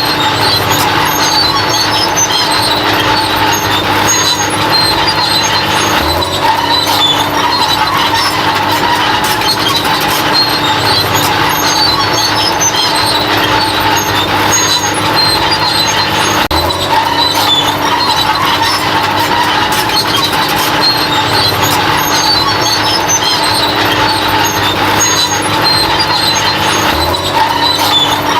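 Bulldozer running steadily, with a continuous high whine over the machine noise.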